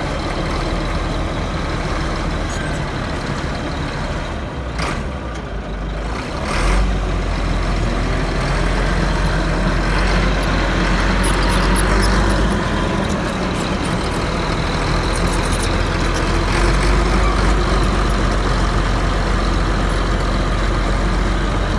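Heavy diesel engine of a bulldozer running steadily with a deep rumble. It grows louder about six and a half seconds in and stays loud, with some light rattling clicks partway through.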